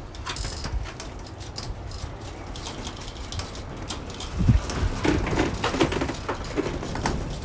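Wind buffeting the microphone, with a heavy thump about four and a half seconds in, followed by clattering and crinkling as a clear corrugated plastic roofing panel is handled on a stepladder.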